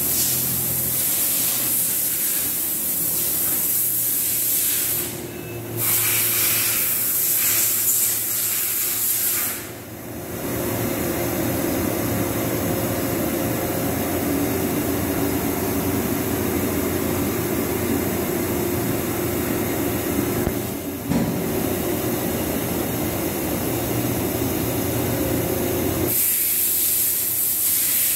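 A running Doosan HP 4000 II horizontal machining center and its coolant and chip-handling equipment: a steady loud hiss over a low motor and pump hum. The level dips briefly twice in the first third.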